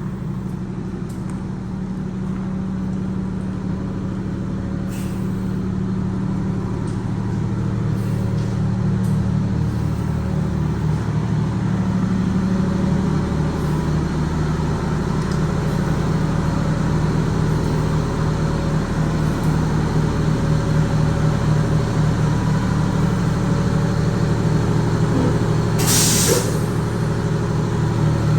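Wanderlodge bus engine running steadily with a low pulsing drone that grows gradually louder. About two-thirds of the way through comes a short burst of air hissing, typical of an air brake or air system venting.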